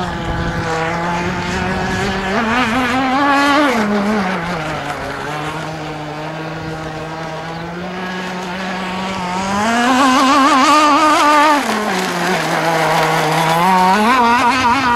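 Modified 29.5 cc Zenoah single-cylinder two-stroke petrol engine of a radio-controlled racing boat running flat out. Its pitch rises and falls three times, with a wavering edge, and it is loudest about two-thirds of the way through.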